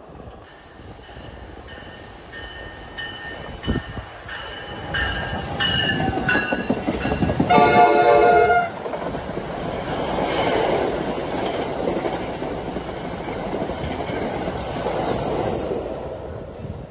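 NJ Transit electric locomotive-hauled commuter train approaching and passing: its horn sounds one loud chord for about a second, then the train runs by with a rising and falling rumble of wheels and cars. Earlier a short tone repeats evenly as the train comes in.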